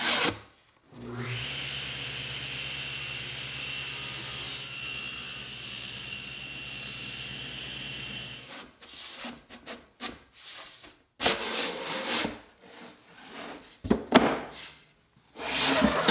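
Table saw running and cutting a plywood drawer bottom to length: a steady hum with a high whine that stops about eight seconds in. Then scattered wooden knocks and rubbing as the panel and drawer box are handled.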